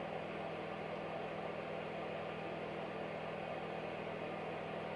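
Steady mechanical whir with a low hum.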